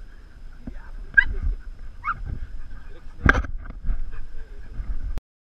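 Dogs giving a few short play barks and yips, the loudest a little past three seconds in.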